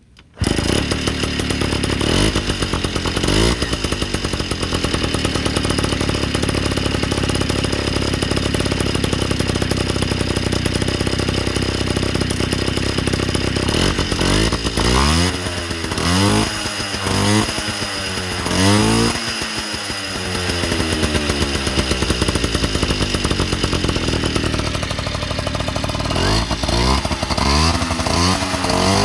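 Yamaha Towny moped's small two-stroke engine starting and running through an aftermarket exhaust, idling steadily at first. About halfway through it is revved in a string of quick blips, settles back to idle, and is blipped again near the end.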